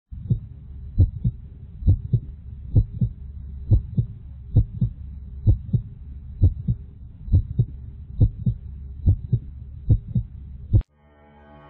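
Heartbeat sound effect: a steady double thump, lub-dub, a little faster than once a second, over a low hum. It cuts off suddenly near the end.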